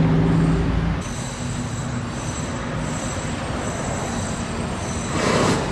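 Outdoor traffic noise. A heavy vehicle's low engine hum fades about a second in, leaving steady road noise with a faint high-pitched squeal that comes and goes, and a short louder rush near the end.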